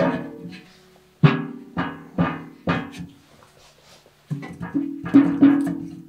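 Background music: plucked acoustic guitar notes and chords, each one struck and left ringing, in an unhurried rhythm with a short pause near the middle.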